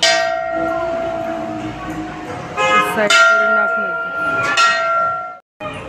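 Hanging brass temple bell at a Hindu shrine's entrance, struck four times, each strike ringing on in a long, steady tone. The sound cuts off suddenly near the end.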